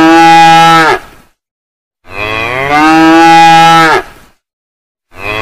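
Cow mooing: long, drawn-out calls, one ending about a second in, a full one about two seconds in, and another starting near the end, each settling onto a steady pitch.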